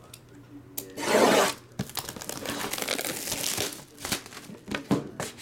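Clear plastic shrink-wrap being torn and stripped off a trading-card box: a loud tear about a second in, then about two seconds of crinkling plastic, and a few light taps near the end.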